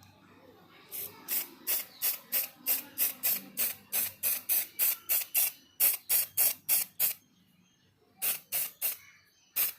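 Spray paint hissing out in short, quick bursts, about three a second, as small model parts are painted. After a brief pause near the end it sprays a few more short bursts.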